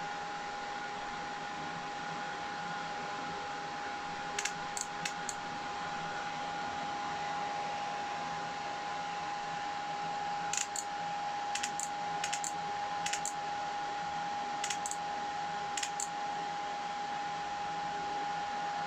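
Small fan in a fume extractor running with a steady airy hiss and a steady whine. A few light clicks come about four and a half seconds in and again from about ten to sixteen seconds in.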